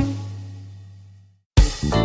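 Background music: a held low note fades out to a brief silence, then the music starts again with a sharp hit about a second and a half in.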